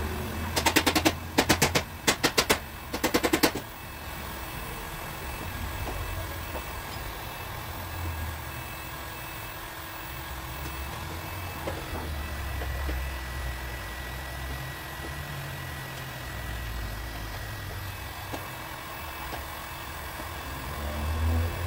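Four quick runs of rapid light hammer taps on the sheet metal of a car door in paintless dent repair, in the first few seconds. After that only a low, uneven rumble of the workshop remains.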